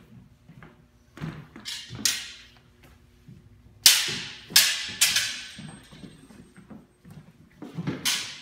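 Steel practice longswords clashing blade on blade, each strike sharp with a ringing tail. Three lighter clashes come between one and two seconds in, three loud ones about four to five seconds in, and another near the end.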